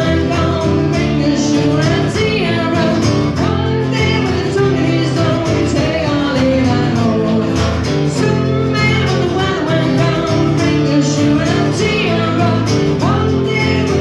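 Live acoustic music: an upright double bass and a strummed acoustic guitar, with a woman singing, playing a sea shanty made up on the spot.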